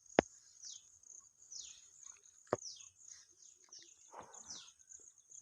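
Birds chirping: many short calls, each sliding down in pitch, repeated over a steady high hiss. Two sharp knocks cut in, one just after the start and one about two and a half seconds in.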